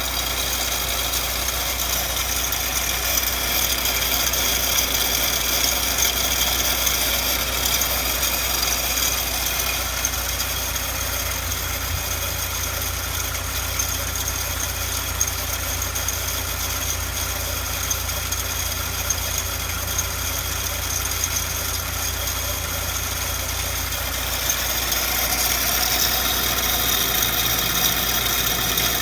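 Honda Integra Type R (DC2) B18C four-cylinder engine idling, with a steady high-pitched whine from the accessory-belt idler pulley: the pulley bearing is worn with age, and the noise is loud enough to be heard with the bonnet shut and from inside the car.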